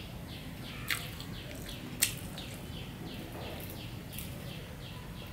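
A bird repeating short, high falling chirps about three times a second, with two sharp clicks about one and two seconds in.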